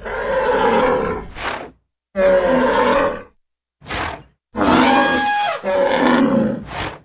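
A run of loud animal roars and bellows added as stampede sound effects: several separate calls, each a second or two long with short silent gaps, the longest near the end carrying a steady pitched tone.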